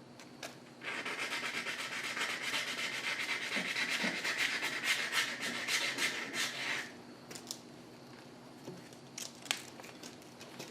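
Rapid hand rasping on metal that starts about a second in and runs for about six seconds: a burr being dressed down because it makes the engine's camshaft fit too tight. A few light clicks and taps follow.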